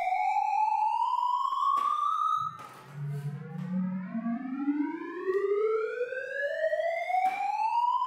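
Sonified shell sort: electronic tones generated by the sorting algorithm, heard as slowly rising sweeps. One sweep ends about two and a half seconds in, and a new one starts low and climbs steadily through the rest, with a few short clicks along the way.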